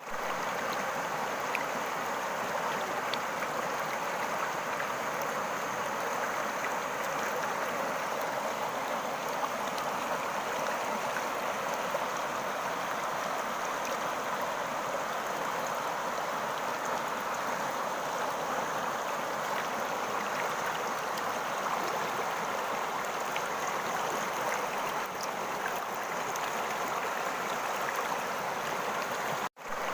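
Running water of a stream, a steady even rush with faint small splashes, with a brief break just before the end.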